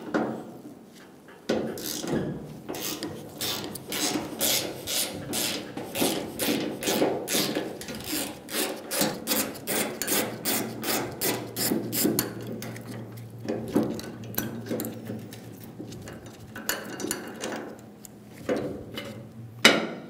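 Ratchet with a T40 Torx bit clicking in quick, repeated strokes as it backs out the screws of a tailgate bracket, with a pause a little after halfway before the clicking resumes.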